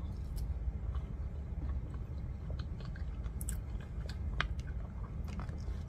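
A person chewing a mouthful of soft baked pasta béchamel, with small clicks scattered through.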